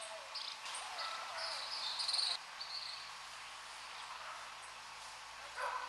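A run of short, high-pitched buzzy chirps over steady outdoor background noise, loudest around two seconds in, with a short louder sound near the end.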